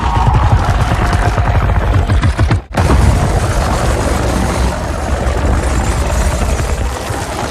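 A made-up monster sound effect for the ice titan Shimo: a loud, dense rumble of noise with rapid low pulses. It breaks off for an instant about two and a half seconds in, then runs on.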